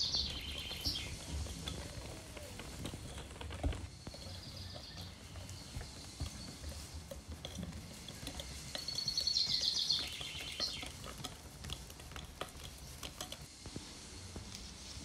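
Cake batter being stirred in a glass bowl, with soft scraping and clicks of the utensil against the glass. Twice, at the start and again about nine seconds in, a short high chirping trill is louder than the stirring.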